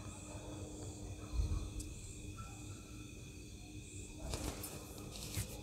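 Quiet room with a faint steady hum and a soft knock about a second and a half in; near the end a domestic sewing machine starts stitching, a run of mechanical clicks and ticks.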